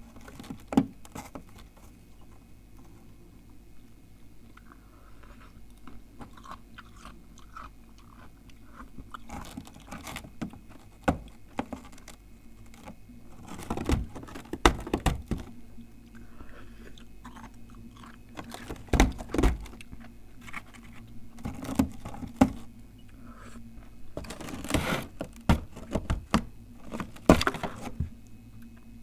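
Freezer frost and ice being bitten and chewed close to the microphone: irregular crunches with quieter spells between them, coming in clusters about halfway through and again near the end.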